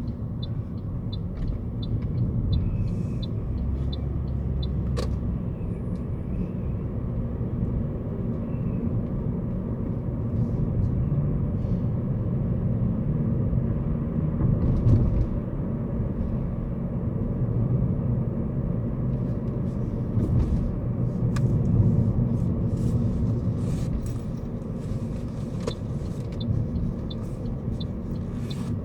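Car driving along: a steady low rumble of engine and road noise. A light, evenly spaced ticking, about two a second, runs through the first few seconds and comes back near the end.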